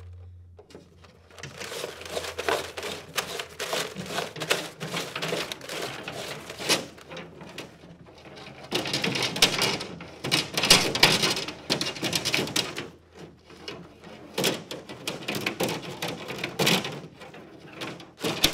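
Steel fish tape being fed off its plastic reel and pushed down inside a wall cavity, toward a hole in the bottom plate. It makes irregular clicks, rattles and scrapes, busiest and loudest about nine to twelve seconds in.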